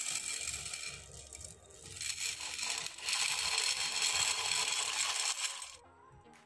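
Dry elbow macaroni poured from a glass bowl into a pot of boiling water: a rattling hiss in two pours, the second longer, cutting off sharply near the end.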